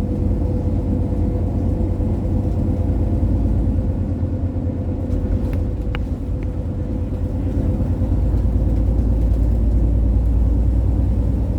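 A car on the move: steady low road and engine rumble with a constant hum, and a couple of faint clicks around the middle.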